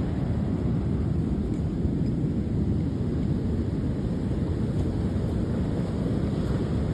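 Wind rumbling on the microphone: a steady low roar with no distinct events.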